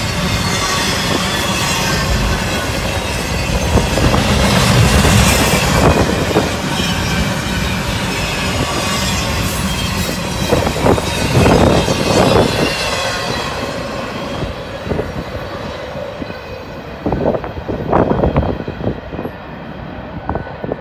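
Norfolk Southern double-stack intermodal container train rolling past on well cars: a steady rumble of wheels on rail with a thin wheel squeal over it. The sound fades once the last cars go by, about 14 seconds in. Irregular short rumbling bursts follow near the end.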